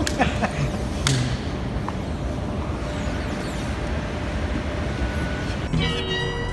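Steady low rumble and hiss of an airport baggage reclaim hall, with a sharp click at the start and another about a second in. Music comes in near the end.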